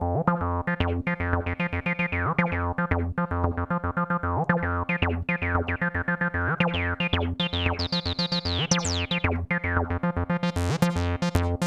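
Roland TB-303-style acid bass synthesizer playing a fast sequenced bass line of short, evenly repeated notes with an octave jump, accents and slides. Each note's resonant filter sweeps quickly downward, and the pattern grows brighter as the cutoff opens about eight to nine seconds in, then sharper again near the end.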